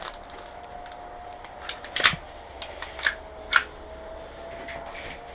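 Sharp mechanical clicks from an airsoft pistol being handled, as if checking it over: a loud pair about two seconds in, then two more about a second and a half apart.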